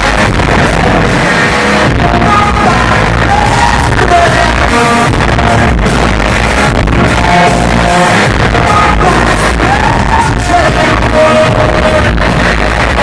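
Rock band playing loudly with a singer's voice carrying the melody over guitars and drums.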